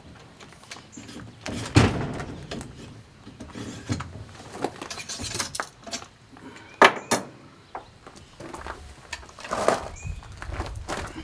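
Scattered knocks and clatter of things being handled, loudest about two seconds and seven seconds in, with softer rustling and clicks between.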